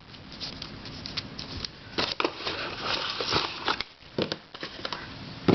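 Plastic twisty puzzles being handled: a run of small clicks and knocks, with rustling around the middle.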